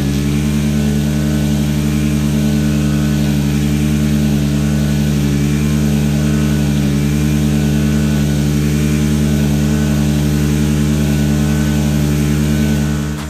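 An engine idling: a loud, steady low drone that holds the same pitch throughout and cuts off sharply at the end.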